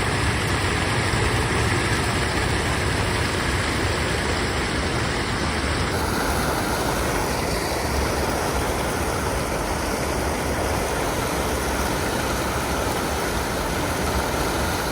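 Steady rush of a mountain stream's flowing water, with no break or distinct events.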